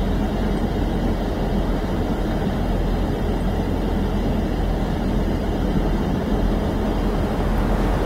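Strong blizzard wind blowing steadily, with wind buffeting the microphone into a deep rumble.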